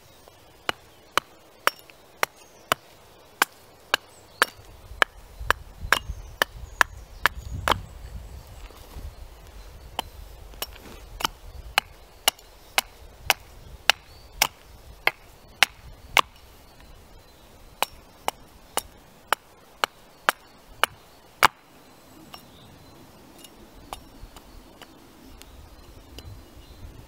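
A small Robin Wood carving axe chops a wooden spoon blank held on end against a stump, shaping it. Its sharp chops come steadily at about one and a half to two a second, then turn fewer and lighter near the end.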